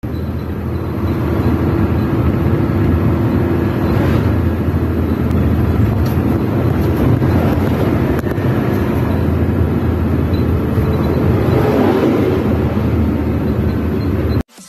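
Steady engine and road noise of a moving vehicle driving on a highway, cutting off abruptly just before the end.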